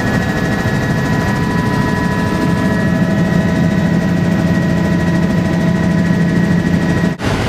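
Steady engine and rotor drone of a light helicopter heard from inside its cabin, an even hum with several constant tones. It breaks off for a split second near the end.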